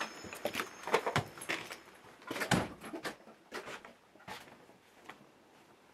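A screen door being opened and shut, with a run of clicks and knocks from the latch and frame and a heavier thump about two and a half seconds in, then a few fainter knocks.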